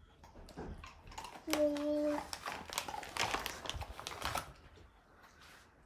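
Crinkling and clicking of a dog-treat packet being handled. Just before the crinkling begins, there is a short, steady voice-like tone, likely the toddler.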